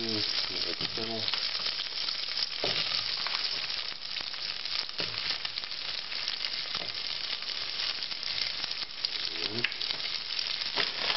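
Butter sizzling in a saucepan with a steady frying hiss. It keeps sizzling as wedges of fennel are laid in to fry, with a few short knocks as they go in.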